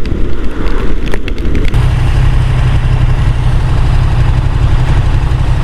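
Wind and wet-road noise from a KTM motorcycle riding along in the rain. About two seconds in it switches abruptly to the steady low hum of the bike's engine idling in neutral.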